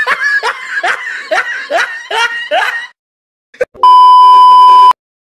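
A person laughing in a quick run of short bursts, each falling in pitch. After a brief pause and a click, a loud, steady electronic beep sounds for about a second.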